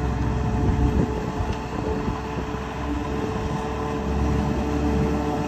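John Deere 5830 self-propelled forage harvester chopping corn for silage, with the silage truck running alongside. Engines run steadily, with a low rumble and a few steady humming tones.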